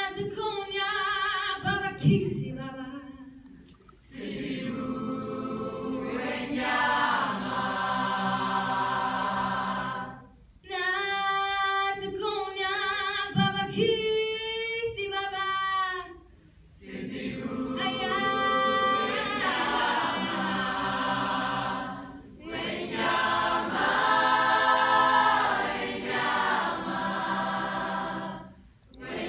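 A female soloist and a mixed high school choir singing, the solo voice's phrases trading with fuller passages from the whole choir.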